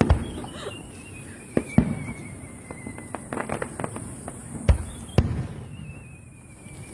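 Fireworks shells bursting overhead: a sharp bang at the start, two more close together near two seconds, a quick run of crackling around three and a half seconds, and two bangs about half a second apart near five seconds.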